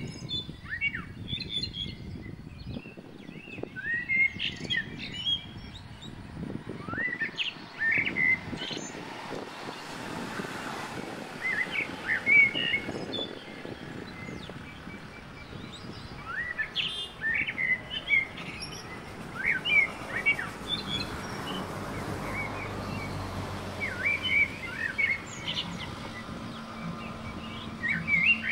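Small birds chirping: many short, quick chirps that rise and fall in pitch, coming in scattered clusters over a steady background hiss.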